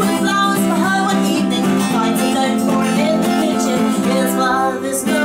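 A woman singing with a strummed acoustic guitar in a folk song, the voice holding and bending long notes over the steady chords.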